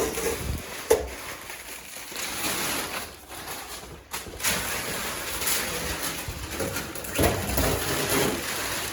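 Protective wrapping being peeled and crumpled off freshly painted bodywork: a continuous crinkling rustle with a few sharper crackles.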